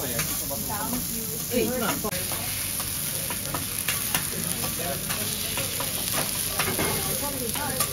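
Wagyu steak sizzling steadily on a hot teppanyaki steel griddle. A knife and a flat spatula click and scrape against the steel as the steak is cut.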